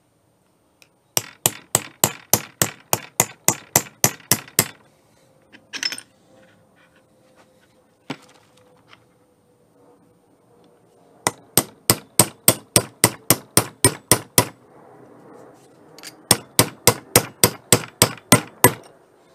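Hammer tapping a new steel roll pin home, metal on metal, to retain the cross pin of a Spartan locker in a Dana 44 differential carrier. The taps come in three quick runs of about five a second, with a single tap between the first two runs.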